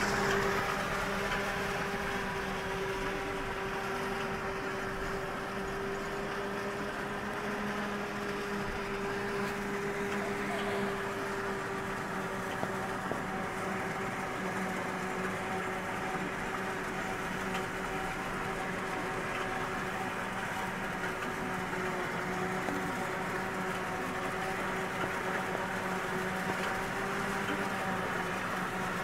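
Claas Jaguar 950 forage harvester chopping maize, with a Mercedes Actros truck running beside it to take the chopped silage. The two make a steady machinery drone with a held, humming whine.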